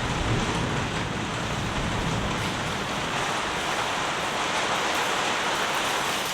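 Heavy rain falling steadily, with a few separate drops ticking. A low wind rumble is heard in the first couple of seconds, then fades.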